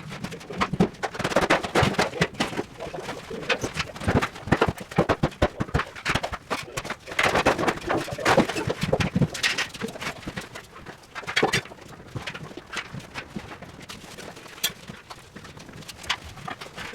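Rapid, irregular knocking and clattering, typical of demolition work on a prefab cold room, busiest in the first half.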